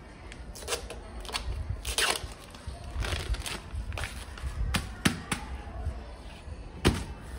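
Handling noise as a label strip is peeled off a new scooter tyre and the tyre is turned over on bubble wrap: irregular sharp crackles and clicks, the loudest about two seconds in and near the end.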